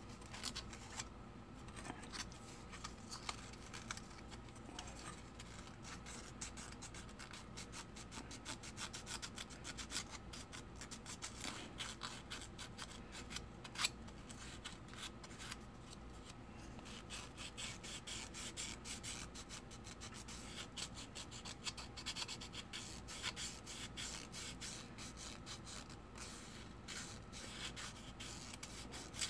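Sandpaper rubbing by hand inside the wheel-arch opening of a plastic scale-model truck body: faint, quick scratchy strokes, with one sharper click about halfway through.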